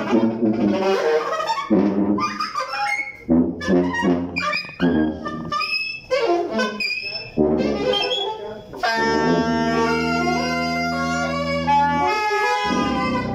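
Live free-improvised jazz from tuba and alto saxophone: short, choppy phrases with bending notes, then about nine seconds in a long low held note with a higher wavering line above it, which stops shortly before the end.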